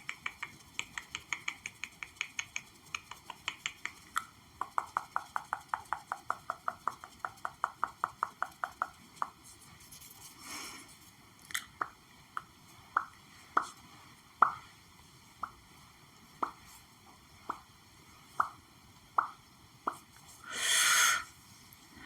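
Fingertips or nails tapping on objects: quick runs of light taps for the first nine seconds, the middle run with a ringing pitch, then slower single taps about once a second. Two short rustling swishes are heard, a louder one near the end.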